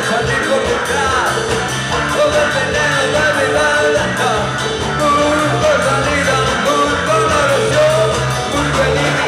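Live rock band playing with electric guitars, bass and drums, amplified through a PA, with a melody line sliding up and down in pitch over the top.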